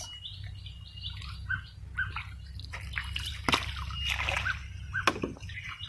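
Water sloshing and dripping, with short bird chirps now and then over a steady low rumble.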